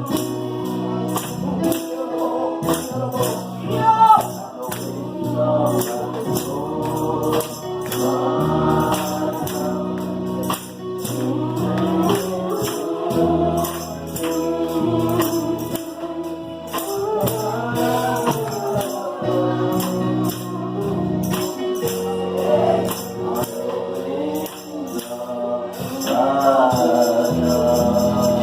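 Live gospel music: sustained keyboard or organ chords under voices singing, with a tambourine shaken in a steady beat.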